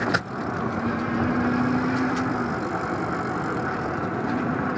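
Steady rolling and wind noise of a Super73 S2 fat-tyre electric bike on the move along concrete pavement, with traffic passing on the road alongside. A faint steady hum comes in for a couple of seconds near the start.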